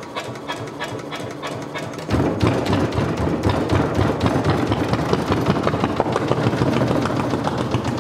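Single-cylinder Volvo MD1B diesel being turned over. About two seconds in it fires and runs steadily, much louder, with even rapid pulses.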